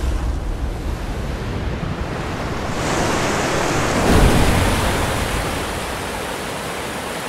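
Rushing water: a steady torrent with no distinct splashes, growing louder about three seconds in and easing off toward the end.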